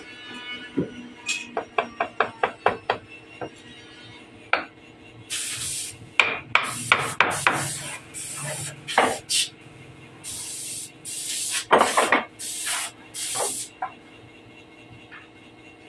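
Hammer tapping on a hardwood table frame: a quick, even run of about eight light taps, some five a second. After that come several short scraping strokes and knocks of wood on wood as the frame is worked.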